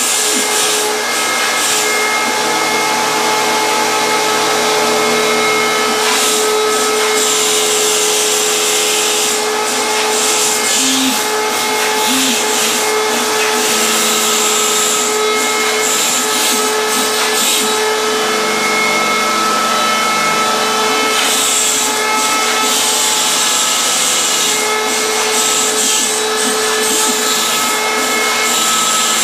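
Foam-cutting CNC router (PhlatPrinter MKII) running a cut at 200 inches per minute: the spindle whines steadily. Underneath it, the stepper motors whine at pitches that change every few seconds as the axes start, stop and change direction.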